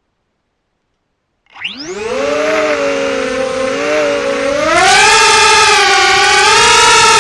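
Small FPV quadcopter's electric motors and propellers spinning up suddenly about a second and a half in: a whine that rises in pitch, then grows louder and higher about five seconds in as the copter flies, its pitch wavering up and down with the throttle.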